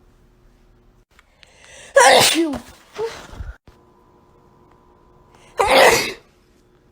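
Human sneezing: a loud sneeze about two seconds in, its voiced part falling in pitch, with a shorter sound after it, then a second loud sneeze a little over five seconds in.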